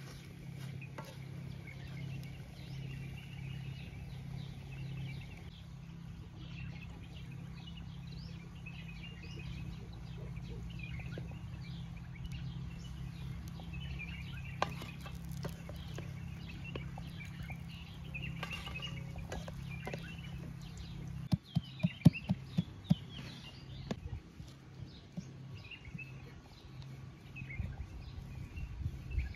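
Birds calling on and off over a steady low hum. About two-thirds of the way through comes a quick run of sharp knocks, the loudest sounds here.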